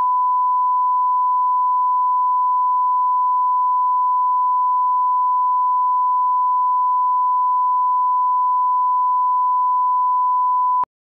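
Broadcast line-up reference tone from a bars-and-tone test signal: one steady, unchanging pure beep that cuts off suddenly near the end.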